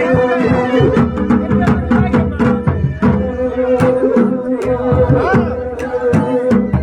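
Pahari folk music for a nati dance: a wavering melody over a steady held drone, with drums beating at a regular pulse.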